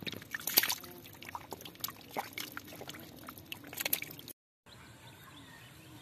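Catfish thrashing in shallow muddy water, a run of sharp splashes and slaps. After about four seconds they stop, and a quieter outdoor background with faint bird chirps follows.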